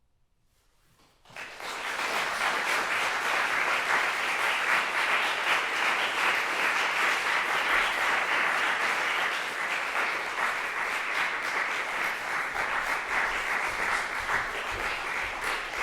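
Audience applauding. It starts about a second in after near silence and then holds steady.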